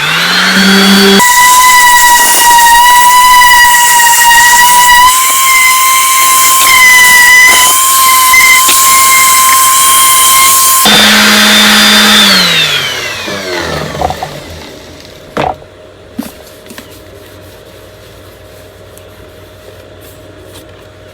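DeWalt power sander sanding down a painted outboard motor hood: it spins up with a quick rising whine, runs at a loud steady high whine for about ten seconds, then winds down with a falling whine. A few light clicks follow in the quiet.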